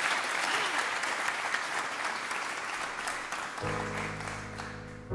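Audience applauding, the applause slowly fading; about three and a half seconds in, a grand piano plays the opening chord of a song's intro.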